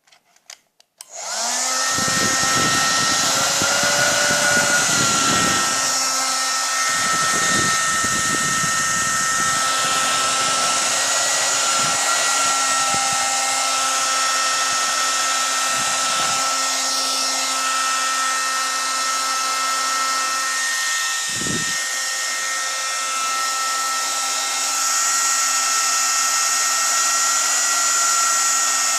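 Handheld hair dryer switched on about a second in and running steadily, drying the glue on a makeup-sponge squishy. Low rumbles come and go beneath it several times.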